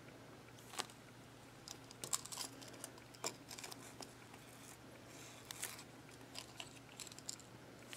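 Faint handling sounds of a foam squishy toy being squeezed and turned in the fingers: scattered soft clicks, crackles and rustles, with the paper tag brushing now and then.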